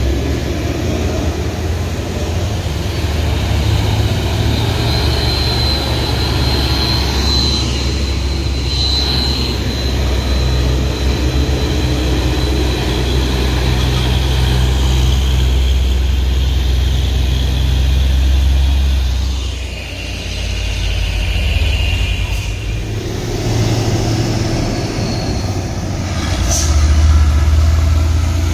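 Heavy diesel truck engines labouring up a steep grade in low gear, a steady deep drone as loaded trucks pass one after another. It dips briefly past the middle and swells again near the end as a container semi-trailer climbs by under heavy load, pouring out dark exhaust.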